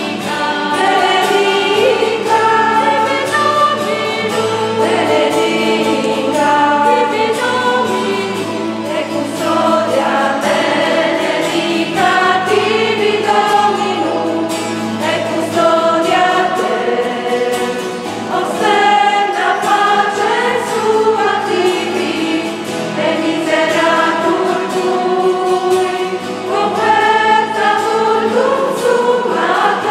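Church choir singing a hymn in several voices, accompanied by acoustic guitar.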